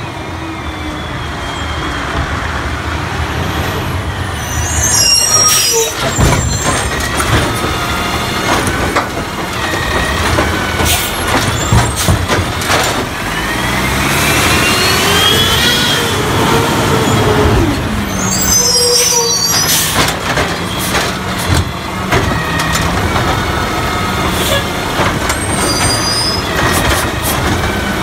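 Scorpion automated side-loader garbage truck pulling up to the curb, with high-pitched brake squeals and sharp air-brake hisses. The diesel engine revs up and back down to drive the hydraulic arm, which grabs and lifts a wheeled cart.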